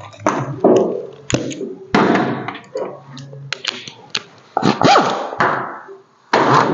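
Irregular knocks and clunks of metal truck parts and tools being handled, with a brief squeal about five seconds in. Near the end a power drill starts up with a steady whine.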